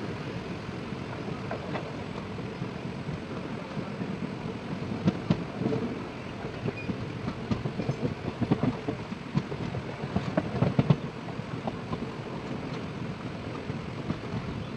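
Train running along the track: a steady rumble of wheels on rail, with irregular clattering knocks that bunch up in the middle.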